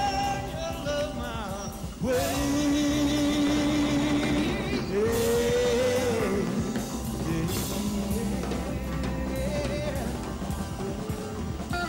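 Background music: a song with a singing voice, the singer holding long, wavering notes.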